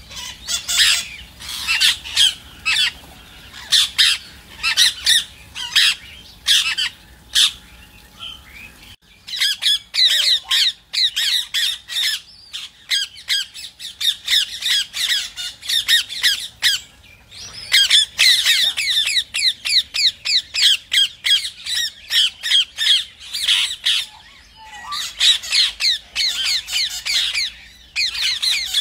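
Rose-ringed parakeets squawking in rapid runs of short, shrill calls.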